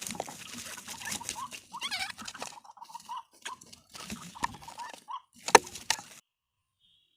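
Rustling and pattering in undergrowth mixed with short, soft clucking calls, with a wavering call about two seconds in. A sharp click comes about five and a half seconds in, and then the sound cuts out completely.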